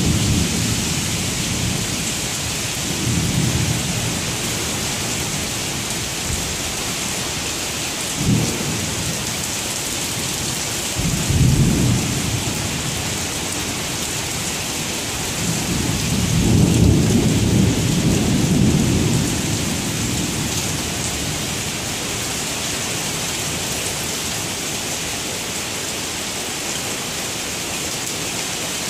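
Heavy thunderstorm rain pouring steadily on pavement and trees, with thunder rumbling in low swells several times. The longest swell is a little past halfway, and a short, sharper clap comes about eight seconds in.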